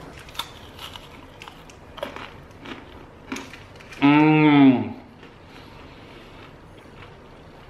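Chewing crunchy homemade honeycomb toffee: a few scattered crunches, then about four seconds in a single loud, drawn-out wordless vocal exclamation that rises and then falls in pitch.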